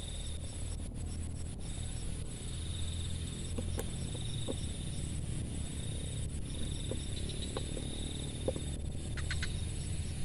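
Insects trilling at a steady high pitch in repeated phrases a couple of seconds long, over a low steady rumble.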